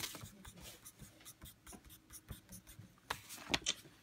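Red pencil scratching on squared paper, drawing small crosses in quick short strokes. A few louder knocks and rubs come near the end.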